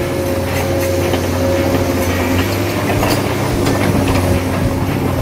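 Remote-control model excavator driving on its tracks: the electric drive motors whine steadily while the tracks clatter with scattered clicks. The whine shifts lower about halfway through.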